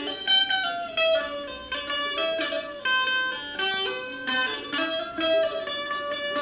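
Indian banjo (bulbul tarang), a keyed zither, playing a melody of plucked metal strings, the notes changed by pressing its typewriter-like keys. Several ringing notes a second, stepping up and down in pitch.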